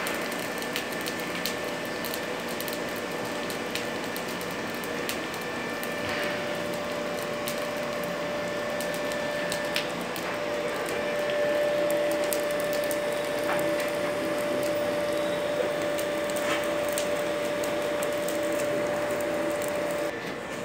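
Aluminothermic (thermite) rail weld burning in a multi-use crucible and running into the rail-joint mould: a steady rushing hiss full of small crackles and spits. A faint steady tone joins in about six seconds in.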